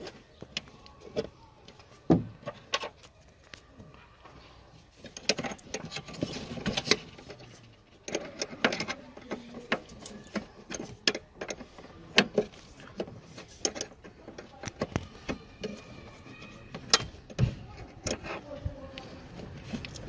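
Metal wiper linkage parts clicking and knocking as the linkage arm is worked by hand onto a car's wiper motor crank: irregular small metallic clinks and taps.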